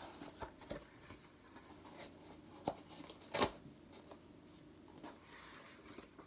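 Faint handling of a paper booklet: light rustling of pages with soft ticks, and two sharper clicks near the middle.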